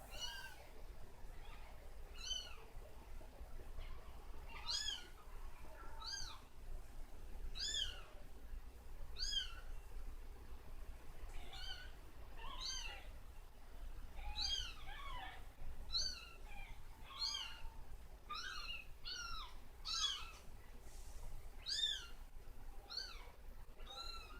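Kittens mewing: short, high-pitched mews that rise and fall, repeated about once a second and sometimes two in quick succession.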